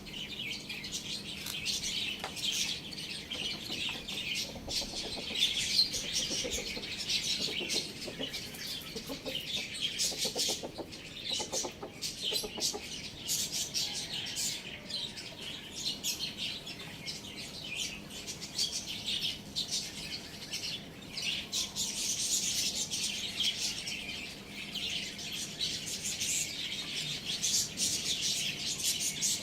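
Many small birds chirping continuously and busily, with some lower clucking from chickens in the first half.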